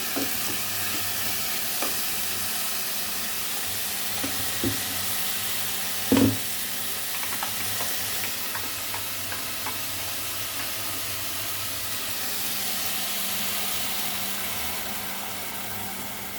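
Food sizzling steadily in a frying pan, with a few knocks and scrapes of a utensil stirring it against the pan; the loudest knock comes about six seconds in.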